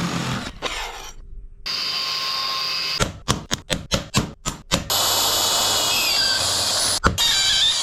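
Electric drill run in quick on-off trigger bursts, about five a second, then held running steadily with its motor whine shifting in pitch. A sharp click comes near the end.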